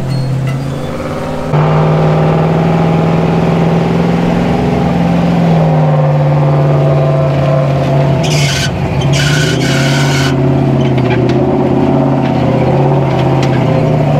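Old carbureted tow truck's engine labouring at steady high revs under heavy load on a steep rock climb, its pitch wavering slightly, with the towing Jeeps' engines running under it. About eight to ten seconds in, three short bursts of rushing noise sound over the engine.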